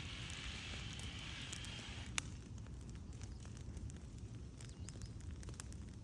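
Wood fire crackling, with scattered small pops and one sharp pop about two seconds in. A steady hiss runs under it and stops about two seconds in.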